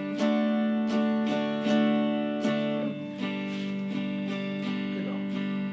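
Acoustic guitar strumming chords in a simple campfire strumming pattern, with a chord change about halfway through.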